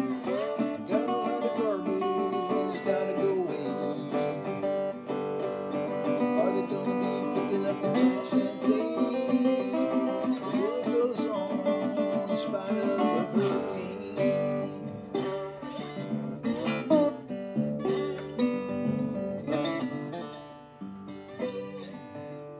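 Metal-bodied resonator guitar being picked and strummed, some notes gliding in pitch, getting softer near the end.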